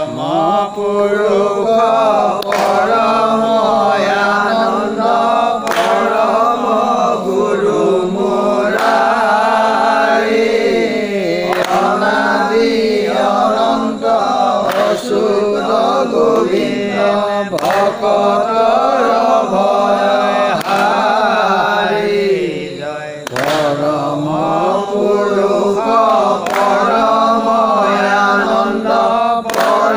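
A group of voices chanting a devotional naam-prasanga refrain together, the melody rising and falling without a break. A sharp hit keeps time about every three seconds.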